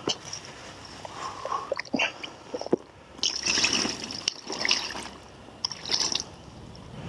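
Water from a bucket splashing over a carp lying on a wet plastic unhooking mat, in three pours, the first and longest about three seconds in. Before that come small clicks and rustles of the net and mat being handled.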